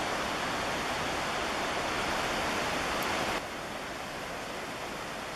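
Steady rushing noise with no distinct sounds in it, which drops abruptly in level about three and a half seconds in.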